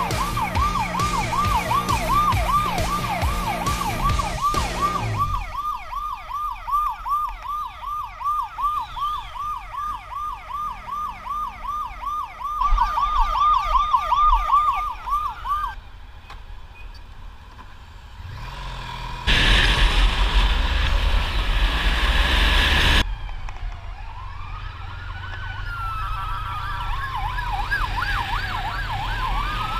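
Police motorcycle siren on a Honda ST1300 sounding a fast yelp, with the engine running underneath at first; the yelp stops about halfway through. After a few seconds of loud rushing noise, the siren comes back as a slow wail rising and falling in pitch.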